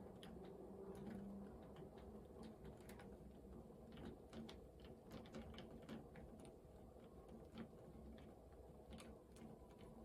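Faint, irregular small clicks of a hand screwdriver turning a long screw into a door handle's mounting plate.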